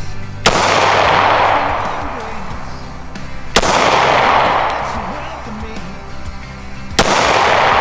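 Three pistol shots about three seconds apart, each followed by a long echoing decay, over background music.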